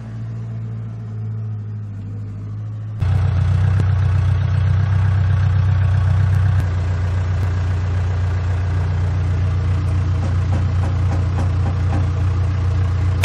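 An engine running steadily, which abruptly gets louder and busier about three seconds in and then holds at that level.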